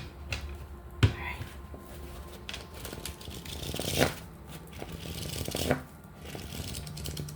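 A deck of oracle cards being shuffled and handled, with a few sharper clicks about a second in, near four seconds and again near six seconds.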